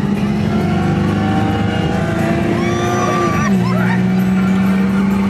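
Radiator Springs Racers ride vehicle running along its track, with a steady mechanical hum whose pitch steps down about three and a half seconds in and a brief higher tone just before it.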